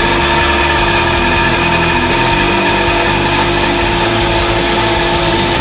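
Bandsaw running steadily with a constant hum, its blade cutting the top curve of a maple guitar neck's headstock.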